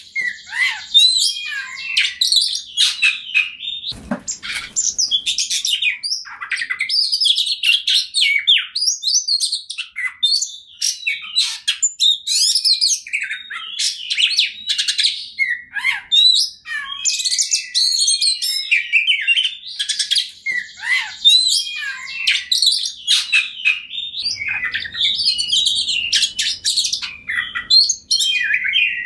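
Oriental magpie-robin singing nonstop in a fast, varied stream of high whistles, chirps and trills. A single dull knock sounds about four seconds in.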